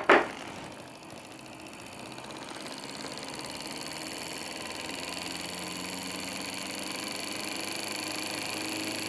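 Homemade reed-switch pulse motor, with a VCR head drum as its rotor and bifilar-wound coils, run on two 9-volt batteries and spinning up. A sharp click at the start, then a whirring hum that rises steadily in pitch and loudness as the drum gains speed.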